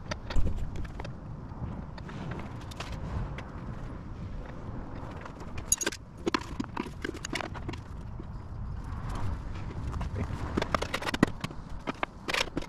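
Irregular clicks, taps and light knocks of hardware being handled and fitted at a motorcycle's rear frame, bunched about six seconds in and again near the end.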